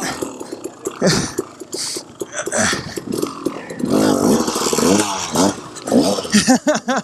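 KTM 300 XC-W two-stroke dirt bike engine revving up and down in quick bursts, with several sharp knocks.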